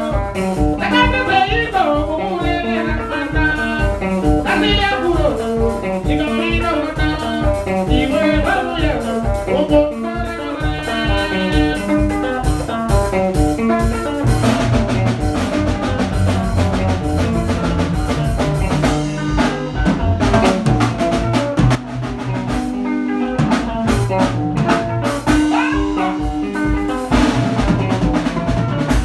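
A live band playing: electric guitar, electric bass and drum kit, with a man singing over them for about the first half. From about halfway the singing stops, and the drums and cymbals come forward with a heavier bass.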